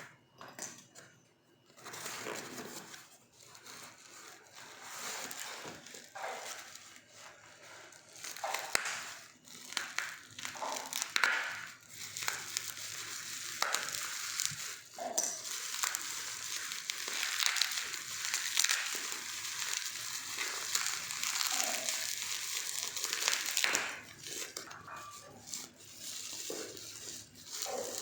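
Packaging being handled and opened by hand: irregular crinkling and rustling with small clicks and knocks, and a longer stretch of steady rubbing or tearing noise in the second half.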